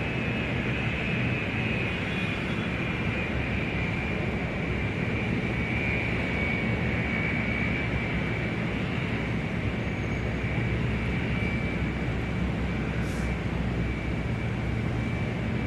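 Airport ambience dominated by an aircraft engine running steadily: a deep rumble with a high, steady whine over it.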